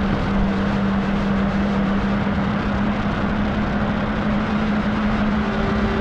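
Cascade of a mountain stream rushing down smooth bedrock chutes, a steady, unbroken sound of falling water, with a steady low hum beneath it.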